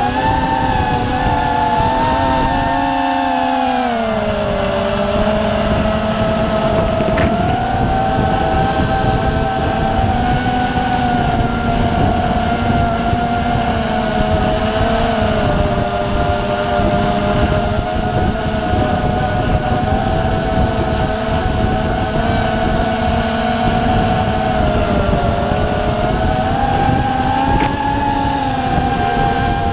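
FPV quadcopter's motors and propellers whining in flight: several close tones that sag in pitch a few seconds in, hold steady, and rise again near the end as the throttle changes. Under them is a rushing wind noise on the onboard action camera's microphone.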